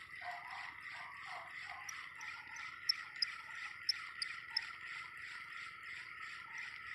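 Spinning reel being cranked to retrieve a lure: a steady high whir with a fast even pulse, and a few light ticks around the middle.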